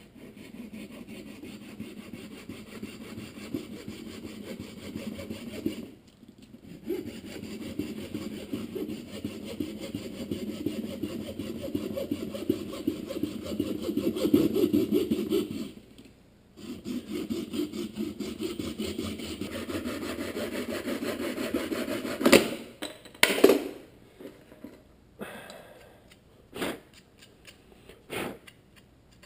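Rapid back-and-forth rubbing of a hand tool against a headlight projector shroud, wearing away part of it so the shroud will fit. The rubbing comes in three long stretches with short breaks about 6 and 16 seconds in, and stops about 22 seconds in, followed by a few sharp knocks and clicks.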